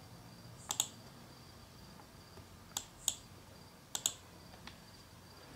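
Computer mouse buttons clicking, a few short sharp clicks: a pair about a second in, two near three seconds, a pair about four seconds in and a faint one just after.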